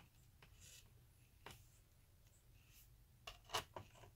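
Faint clicks and light scraping of a screwdriver and small parts on a laptop's chassis while screws are put back. One soft click comes about a second and a half in, and a quick cluster of louder clicks comes near the end.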